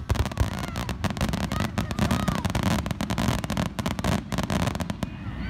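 Fireworks crackling: a dense run of rapid, sharp pops that thins out near the end.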